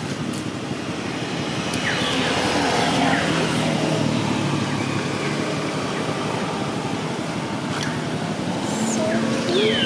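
Steady road-traffic noise with a motor vehicle's engine hum, growing louder a few seconds in. A short high squeal falls in pitch near the end.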